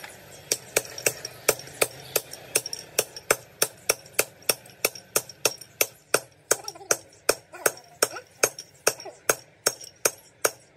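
Hammer tapping on metal in a quick, even rhythm of about four blows a second, every other blow louder, each with a short ringing note.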